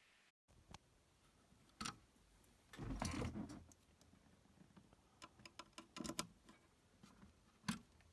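Faint scattered clicks and knocks of hands handling the synthesizer setup, with a denser cluster of knocks about three seconds in and a few more around six seconds.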